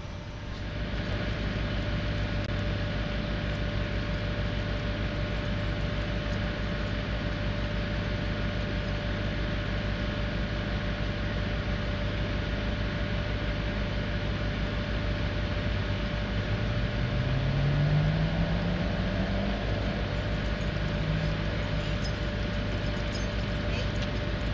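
Steady mechanical hum with a thin steady tone running through it. About two-thirds of the way through, a vehicle engine rises in pitch for a few seconds, then briefly again.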